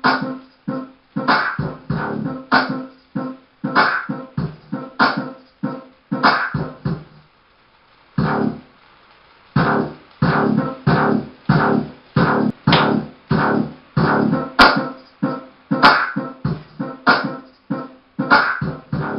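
Dance music with a steady, punchy beat and plucked or scratched sounds, dropping out briefly for about a second partway through before the beat resumes.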